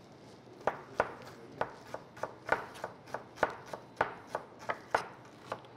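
Chef's knife cutting raw chicken pieces on a cutting board, the blade knocking on the board in short irregular taps, about three a second, stopping just before the end.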